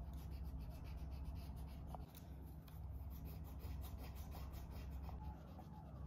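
Rapid back-and-forth colouring strokes scratching on a paper cutout, over a steady low hum.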